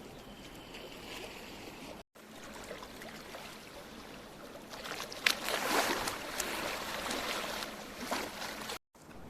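Sea water washing and splashing at the shore, louder and splashier in the middle with a sharp click and a few smaller clicks, broken by two abrupt cuts.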